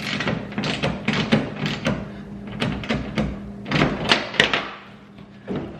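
Irregular knocks and clatter from handling tools and parts on the car's front end during headlight installation.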